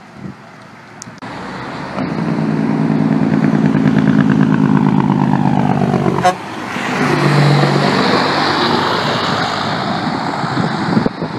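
Heavy diesel truck's Jake brake (compression-release engine brake) firing loudly as it passes, a rapid staccato bark whose pitch falls away. After an abrupt cut in the middle, another heavy truck's engine runs loud with road noise.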